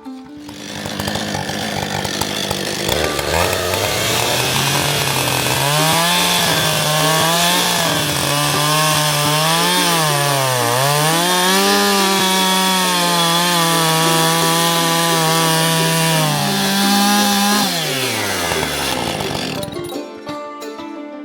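Two-stroke chainsaw running and cutting timber, its engine pitch dipping and rising as the chain bites, then winding down near the end.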